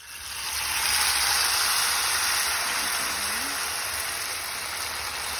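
Bean-cracker batter frying in hot oil in a pan, a steady sizzle that builds over the first second and then eases slightly.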